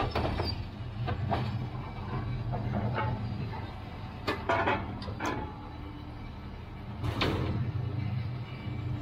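Diesel engine of a scrap-yard material handler running steadily while its orange-peel grapple works into a trailer load of scrap steel. Several sharp metal clanks and knocks come at irregular intervals, the loudest about four and a half and seven seconds in.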